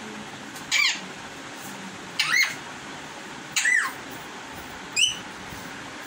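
Young Indian parakeet screaming: four short, harsh calls, one about every second and a half, each arching up and then dropping in pitch, the last one shorter and higher.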